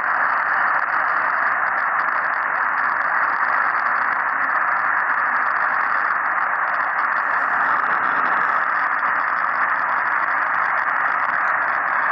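Steady radio static: an even, thin hiss from a receiver with no program audio on the channel.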